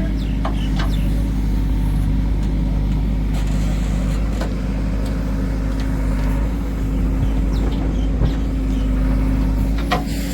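Heavy diesel engine of a backhoe loader or tractor running steadily with an even low hum, with a few short knocks over it.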